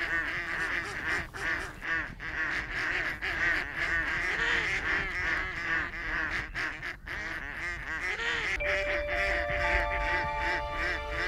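Many ducks quacking at once, a continuous chorus of overlapping calls from live decoy ducks on the water. Soft music fades in near the end.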